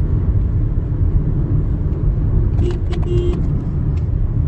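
Loud, steady low rumble of a moving car, with a few faint clicks about three seconds in.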